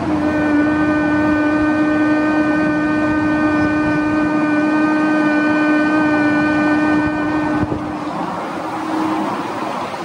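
A woman humming one steady, held note on the exhale of Bhramari (humming bee) breathing, pitched on the higher tone of this stage. It holds for about seven and a half seconds, then trails off more quietly for a second or so before stopping.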